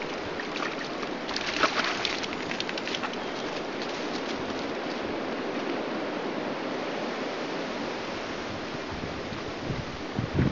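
Shallow stream running over stones: a steady rush of flowing water. A brief cluster of sharp clicks comes about two seconds in, and there is low buffeting on the microphone near the end.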